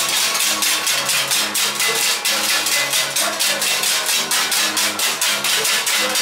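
Folk music on hand-held scraped rasps, a fast steady scraping of about five strokes a second, over a low melody in held notes.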